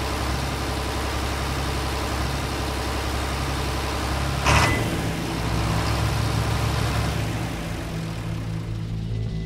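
Mountain bike rolling down a rough grassy track: a steady low rumble and rattle as the bike is shaken over the ground, with one sharp knock about four and a half seconds in.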